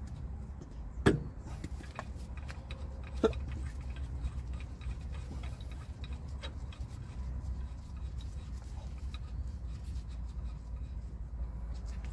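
Hand tools and metal parts being handled during heavy-truck axle work: a sharp metal knock about a second in, another about three seconds in, and scattered light clicks and clinks over a steady low rumble.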